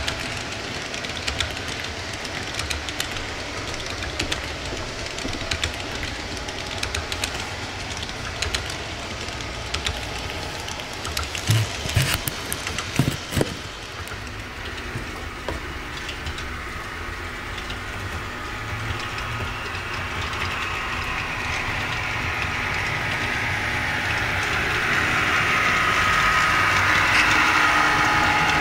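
Model double-stack container train running on layout track: a steady rolling rumble with fine clicking of the wheels over the rail joints. A few sharp knocks come about halfway through, and near the end a whine grows louder as the train comes closer.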